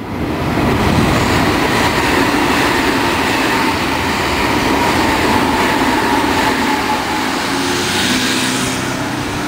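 Nankai electric train running past on the tracks beside the station: a loud, steady rush of wheels on rail with a faint steady whine. It starts suddenly.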